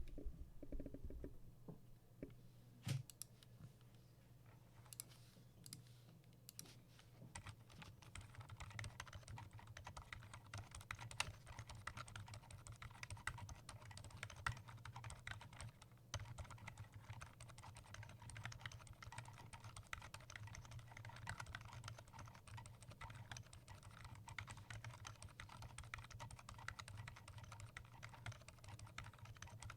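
Typing on a custom 60% mechanical keyboard with a wooden case, aluminium plate, lubed Gazzew Boba Gum switches and PBT keycaps. A few scattered keystrokes come first, then steady, fast typing from about seven seconds in.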